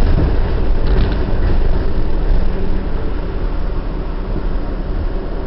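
New York City subway R62A train running through the tunnel, heard from inside the car. A loud, dense rumble of wheels on rail that eases off gradually over the second half.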